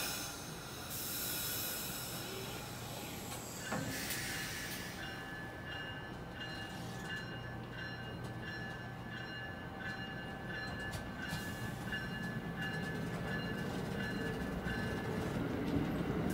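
Amtrak Amfleet passenger coaches rolling slowly past close by, a steady rumble of wheels on rail. About four seconds in a high, evenly pulsing squeal sets in, and the rumble grows louder near the end as the train gathers speed.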